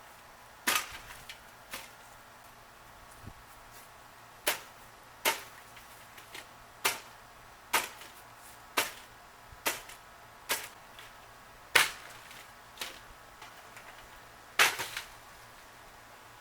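Repeated sharp blows striking a plastic Lasko box fan, about a dozen hits at roughly one a second, each with a brief rattle after it.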